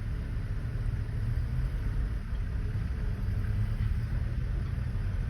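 Low, steady rumble of a safari vehicle's engine running at idle.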